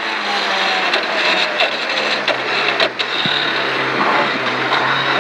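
Talbot Sunbeam rally car's engine and road noise from inside the cabin as the car slows and changes down from fifth to second for a chicane, the engine note falling steadily. A few sharp knocks come about three seconds in.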